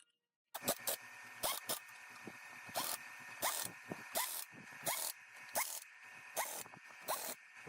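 Workshop tool being worked in regular strokes, about three every two seconds, each with a short rising squeak, over a steady whine.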